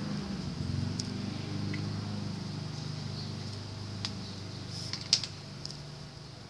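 A steady low mechanical hum with a few sharp clicks, the loudest about five seconds in.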